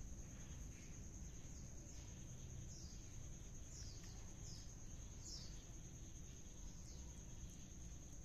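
Faint background ambience: a steady high whine, with about five short, high, falling chirps in the middle few seconds.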